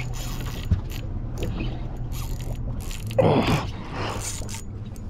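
Spinning reel being wound in against a hooked fish on a bent rod, its gears running with a grainy ticking, over a steady low hum. A person's voice breaks in briefly about three seconds in.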